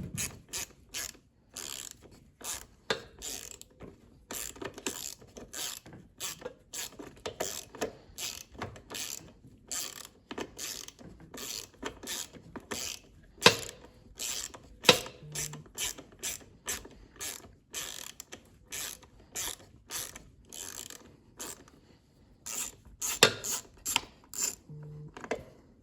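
Ratchet wrench clicking in short, irregular runs of strokes, a few clicks a second.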